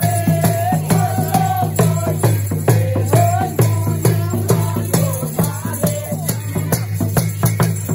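Nepali folk dance music for Sakela: a sung melody over a fast, steady beat of drum strokes and rattling percussion.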